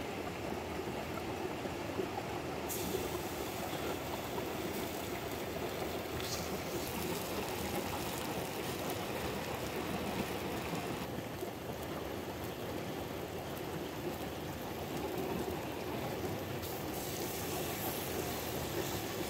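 Steady rushing of a small rocky stream close by. The higher part of the hiss changes abruptly three times, about three, eleven and seventeen seconds in, where the clips are joined.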